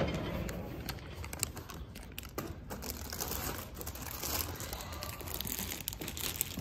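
Faint rustling and crinkling with scattered light clicks: footsteps and handling noise while walking across concrete.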